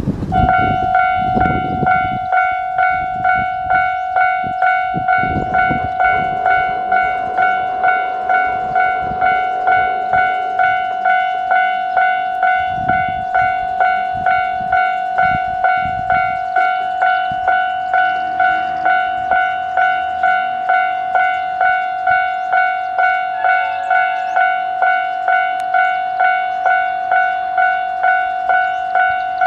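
Japanese level-crossing warning bell ringing in a steady, even pulse of about one and a half strikes a second, each strike a single bright tone with overtones. It starts just after the beginning and signals an approaching train.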